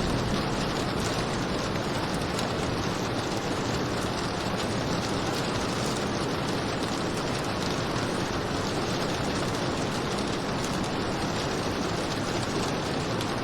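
Steady, heavy rain: an even rushing hiss with faint scattered drop ticks.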